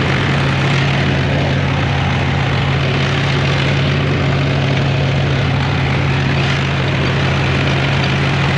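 Mahindra tractor's diesel engine running steadily at a constant speed while it tills the field, driving a PTO-powered rear implement, heard up close from on the tractor.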